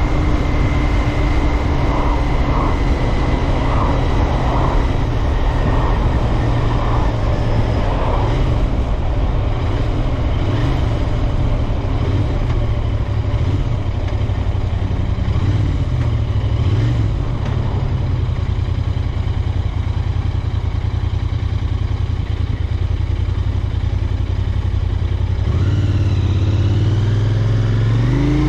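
Royal Enfield Interceptor 650's 648 cc parallel-twin engine and exhaust running steadily while riding, with the engine note rising near the end as the bike accelerates.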